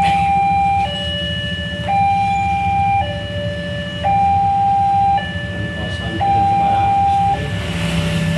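Two-tone hi-lo siren, alternating steadily between a higher and a lower note about once a second, four full cycles, the high note slightly louder. A steady low rumble runs underneath.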